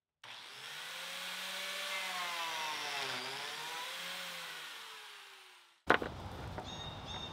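Biscuit joiner motor running while it cuts a slot in the wooden apron, its pitch dipping briefly mid-way, then spinning down and falling in pitch. A sharp knock near the end.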